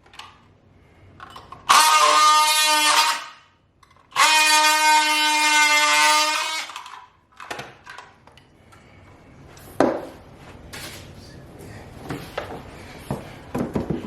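A power tool running at a steady high pitch in two bursts, the first about a second and a half long and the second about three seconds. Scattered knocks and handling clatter follow.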